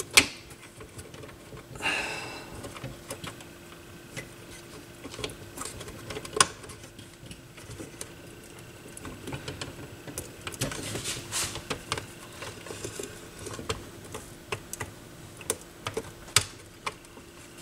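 Scattered light clicks, taps and knocks of hands handling and seating the circuit board and parts inside an open Philips 212 turntable chassis. There are sharp clicks just at the start and about six seconds in, and a busier patch of handling noise around eleven seconds, over a faint steady hum.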